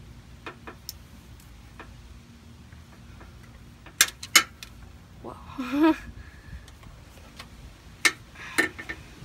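Scattered clicks and taps of hands handling a plastic wire loom and a hand tool against a Jeep's frame, loudest as two sharp clicks about four seconds in and two more near the end. A brief pitched sound bends up and down about halfway through.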